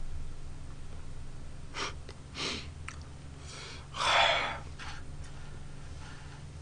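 A man's breathy exhalations and sighs, a few short ones and one longer, louder sigh about four seconds in, over a low steady hum; an exasperated sigh.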